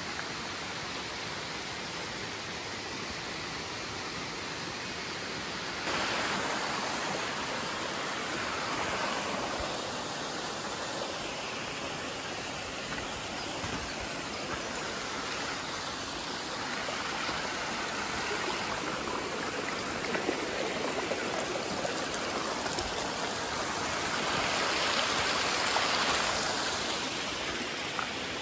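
Mountain stream rushing steadily through a rocky, debris-choked valley, with no speech. It grows louder about six seconds in and swells again near the end.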